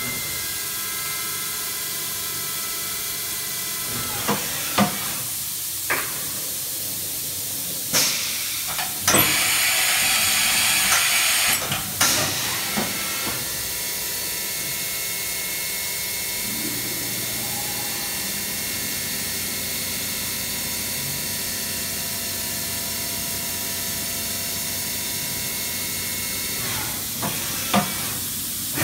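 Chevalier QP2033-L CNC vertical machining center running a program: a steady running hum with several clicks and knocks from its moving axes. It gives a loud hiss for about two seconds, starting about nine seconds in.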